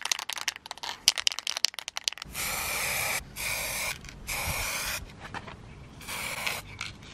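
Aerosol spray-paint can being shaken, its mixing ball rattling quickly for about two seconds. It is then sprayed in four short hissing bursts, repainting a small plastic part.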